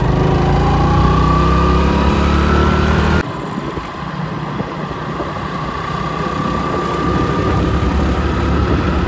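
Motorcycle engine running under way, its pitch rising steadily as the bike speeds up. About three seconds in the sound cuts off abruptly and comes back quieter, and the engine note climbs slowly again.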